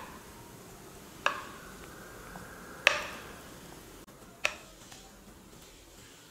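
Thick chocolate cake batter being poured from a bowl into an aluminium cake tin, with three sharp clinks of kitchenware about a second and a half apart.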